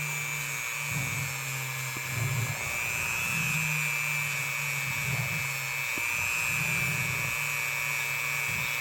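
Small high-speed rotary tool whining steadily as it is held lightly against the tang of an old pocket knife to clean off grime over a faint tang stamp. A lower hum comes and goes as the tool touches the metal and lifts off.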